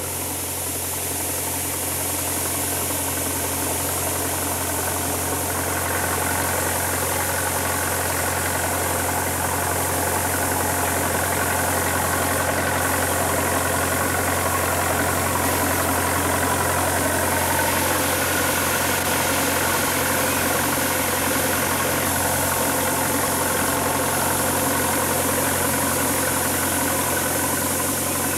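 Sprinkler irrigation machine running: a steady mechanical drone like an idling engine, with a constant hiss over it.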